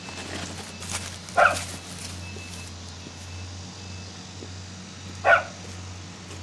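A dog barking twice, two short single barks about four seconds apart.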